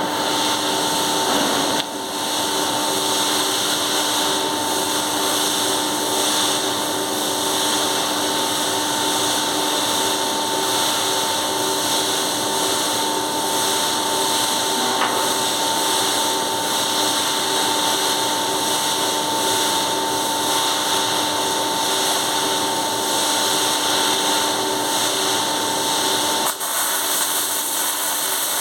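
Steady running of a motor-driven machine, with a constant whine over a loud rushing noise; the sound briefly dips about two seconds in and shifts near the end.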